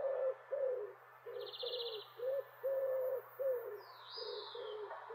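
Bird calls: a run of short, low hooting notes at about two a second, with a brief high buzzy trill about one and a half seconds in and a high falling whistle about four seconds in.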